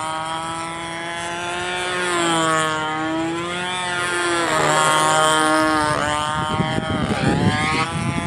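Control-line Super Clown model airplane engine running steadily at a high pitch, its note dipping and rising every couple of seconds as the plane circles past. Near the end, rumbling gusts of wind hit the microphone.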